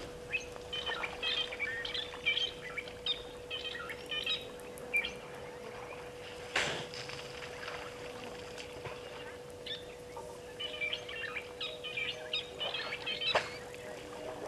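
Outdoor bush ambience of birds chirping in quick clusters of short calls, over a steady faint tone. There are two brief water sloshes, one about midway and one near the end, as an elephant drinking at the waterhole works the water with its trunk.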